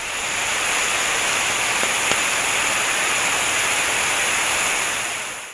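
Steady rushing hiss of water spraying from a fire hose nozzle, with a faint click about two seconds in; it fades out at the very end.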